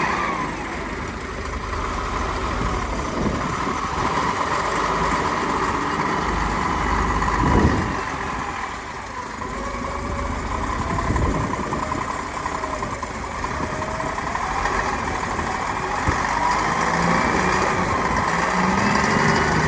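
An engine running steadily, with a brief louder surge about seven and a half seconds in.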